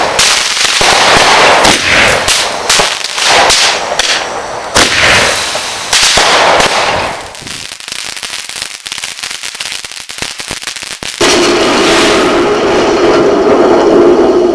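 Fireworks going off: a string of loud bangs and crackles from bursting aerial shells, then from about seven seconds in a quieter, dense rapid crackle from a ground fountain spraying sparks. About eleven seconds in the sound cuts abruptly to music with sustained tones.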